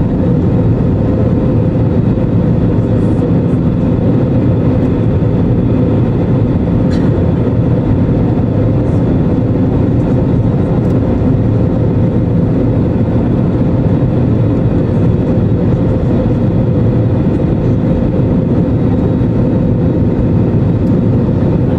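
Steady cabin noise inside an Airbus A320neo: the running CFM LEAP-1A engines and the airflow make a loud, even noise with a constant hum, and a few faint rattles are heard over it.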